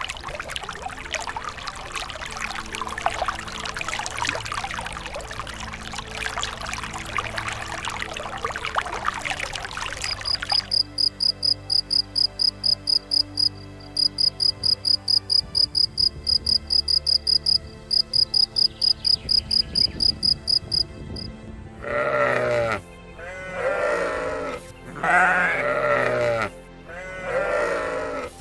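Background music throughout. An even hiss fills the first ten seconds, then a high, rapid chirping of about four pulses a second runs for roughly ten seconds. Near the end a sheep bleats four times.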